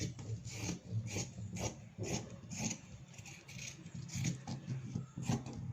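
Scissors cutting through a four-fold stack of cloth, with repeated short snipping and rasping strokes at about two a second.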